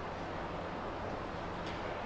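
Steady background hum and hiss with no distinct event in it.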